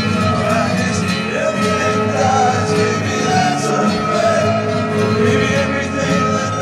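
Recorded music playing: a song with a singing voice over sustained instrumental tones.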